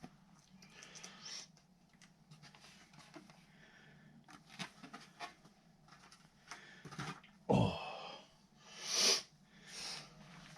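Scattered clicks and knocks of hands and tools working on a motorcycle's dash panels, with one loud thump about seven and a half seconds in and a breathy hiss about nine seconds in.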